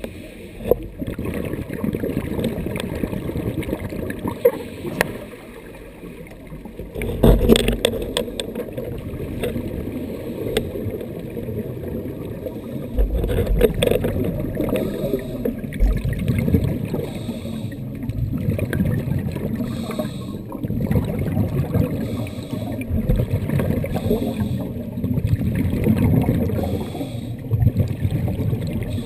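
Scuba divers' regulators breathing underwater: exhaled bubbles rush and rumble in surges every few seconds, muffled through the camera's waterproof housing.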